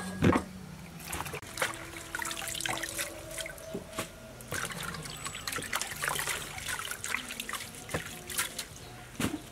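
Water trickling and dripping, with many small irregular splashes and clicks.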